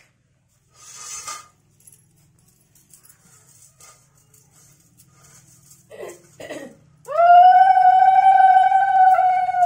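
Conch shell (shankha) blown in one long, steady, loud note from about seven seconds in, dropping in pitch as it fades at the end. Just before it come two short, lower sputters.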